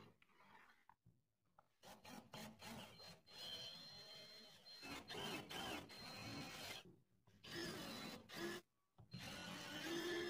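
A cordless drill running, boring a twist bit into a wooden block, starting about two seconds in; it comes in short stretches broken by abrupt gaps, with a steady motor whine near the end.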